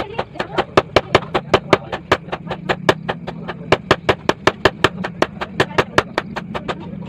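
Hand hammer beating a red-hot bearing-steel knife blank on a small steel anvil: a fast, even run of metal blows, about five or six a second.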